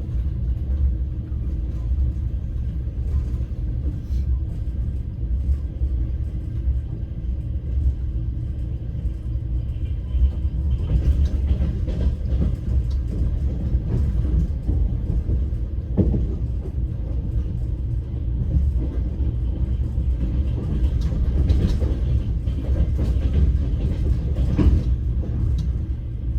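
Steady low rumble of a passenger train carriage heard from inside while under way, with a few sharp knocks from the running gear over the course of it.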